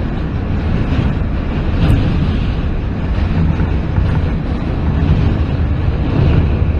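New York City subway J train running, heard from inside the car: a loud, steady low rumble of wheels on rail with a few faint clicks.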